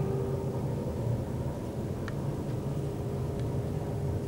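Schindler hydraulic elevator running steadily as the car descends: a low, even hum with a faint steady tone over it, and a light click about two seconds in.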